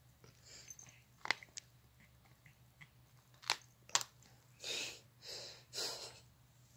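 A cat chewing close to the microphone: a few sharp crunching clicks, then three short breathy rushes near the end.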